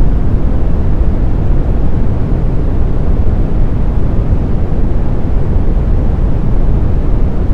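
Synthetic brown noise: a steady, deep hiss, strongest in the low end and fading toward the highs, with no tones or music.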